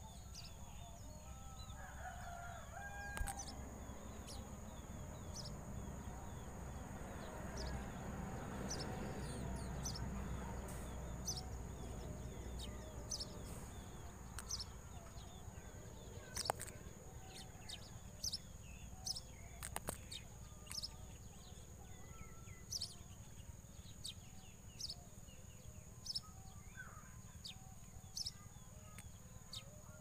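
Birds calling outdoors: a few pitched calls early on, then short high chirps repeating through the second half, over a steady high tone.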